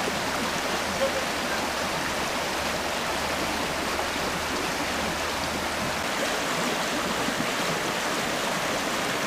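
River water rushing steadily over a shallow, stony riffle.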